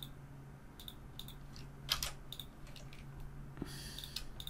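Faint, scattered clicks of a computer mouse and keyboard keys being pressed, about eight in all with the loudest about two seconds in, over a low steady hum.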